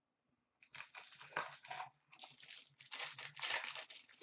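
A trading-card pack wrapper crinkling and tearing as it is opened by hand. The crackling starts under a second in, pauses briefly around two seconds in, and is loudest shortly before the end.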